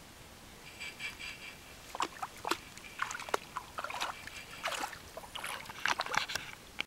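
Chocolate Labrador wading into shallow lake water and starting to swim, its legs splashing and sloshing in irregular splashes that pick up about two seconds in.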